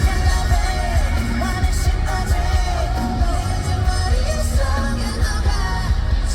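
Live pop-rock band playing with a male lead vocal singing the melody over it, the bass very heavy.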